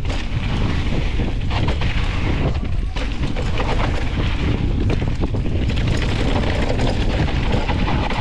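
Wind rush on the microphone and the rumble of a mountain bike rolling fast down a dirt trail, with many small knocks and rattles from the rough ground.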